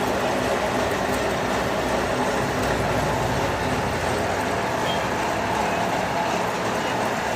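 Electric arc welding: the arc crackles and buzzes steadily, without a break.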